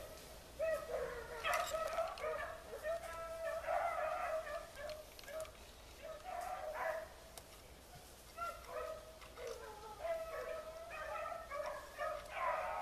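A pack of beagles baying, several voices overlapping in repeated drawn-out cries, the sound of hounds running a rabbit's trail.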